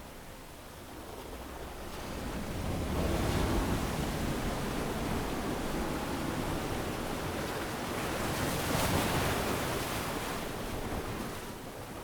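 Ocean waves breaking and washing up a sandy beach: the surf swells about two seconds in, peaks twice, and ebbs near the end.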